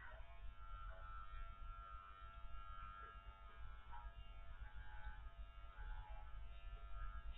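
Electric dog clippers running with a steady hum as they shear a Spanish water dog's curly coat.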